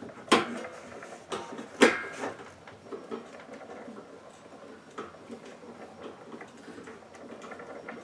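A Phillips screwdriver tightening the screws that fix the bracket to the back of a satellite mini-dish. Two sharp knocks come in the first two seconds, then faint ticking and scraping as the screws are turned home.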